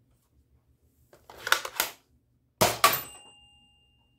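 Nerf blaster being primed with a quick plastic rattle in two strokes, then firing a Mega dart with a sharp crack about two and a half seconds in. The crack is followed at once by a hit and a short metallic ring that fades over about a second.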